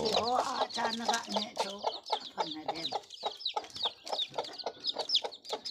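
A flock of local chickens clucking and calling, many short high calls overlapping without a break.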